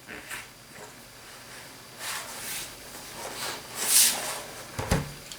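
HP ProBook 4440s removable battery being pushed into its bay on the laptop's plastic underside: a few short plastic scrapes and rattles, then a sharp click near the end as it seats.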